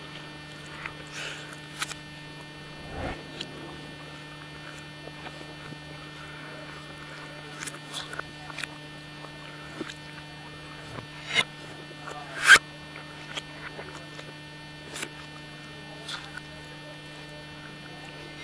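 Steady electrical hum, with scattered short clicks and scrapes of a fork and knife against a plate. The sharpest click comes about twelve seconds in.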